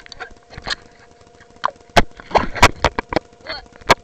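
Water sloshing and splashing around a camera as it comes up out of the lake, with irregular sharp knocks on its housing bunched in the second half. A faint steady hum runs underneath.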